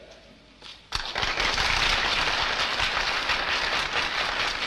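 Audience applause: a crowd breaks into dense clapping about a second in, after a pause in the speech, and keeps it up steadily.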